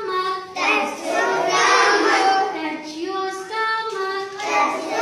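A group of young children singing a rhyme together in unison, in short chanted phrases.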